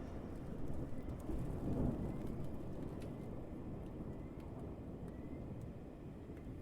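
Low rolling rumble of thunder slowly dying away in a rainstorm.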